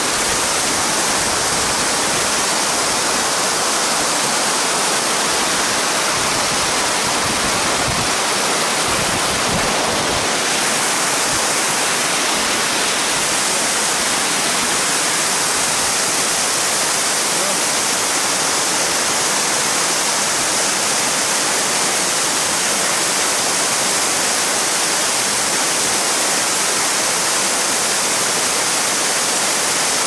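A tall waterfall plunging down a rock face: a loud, steady rush of falling water.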